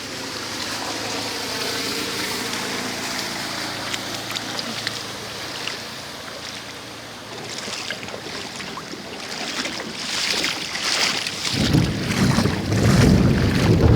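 Floodwater in a flooded street sloshing and splashing. In the first few seconds an engine hum slowly falls in pitch. A loud low rumble cuts in near the end.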